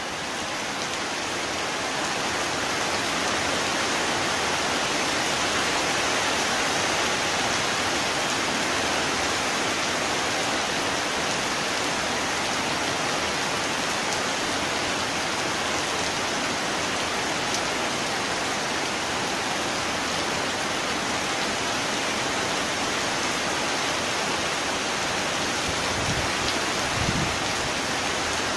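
Steady heavy rain falling, fading in over the first couple of seconds, with a couple of brief low thuds near the end.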